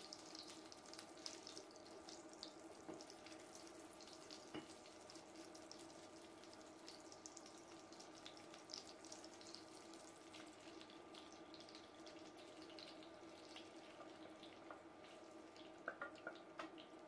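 Melted butter sizzling faintly in a hot frying pan as cubes of raw chicken breast are laid in, over a steady hum. A few louder clatters near the end as the rest of the chicken is tipped in from a glass bowl.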